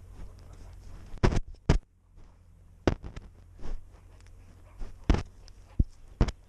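About six sharp, irregular knocks and crunches right at a cat-mounted camera as the cat moves its head through crusted snow and dry grass.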